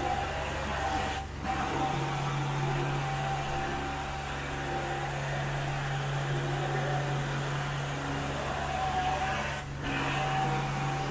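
Carpet extraction wand drawn across carpet under the suction of a carpet-cleaning extractor, a steady droning hum with a higher whine over it. The suction sound drops briefly twice, about a second in and again near the end.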